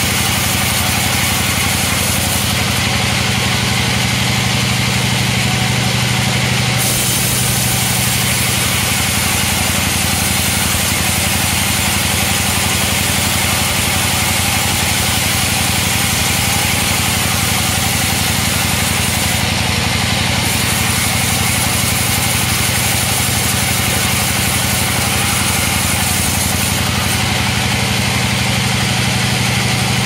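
Band sawmill running steadily, its vertical blade ripping lengthwise through a long wooden beam, a dense hiss over the constant hum of the mill's drive.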